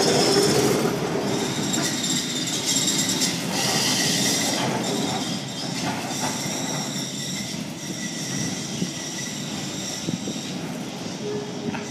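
Funicular car's steel wheels rolling and squealing on the rails, loudest as it passes close and fading as it runs away along the track.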